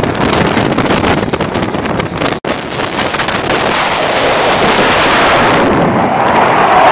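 Wind buffeting the microphone, then, after a brief dropout about two and a half seconds in, the jet roar of six F-16s flying overhead in formation, growing louder toward the end.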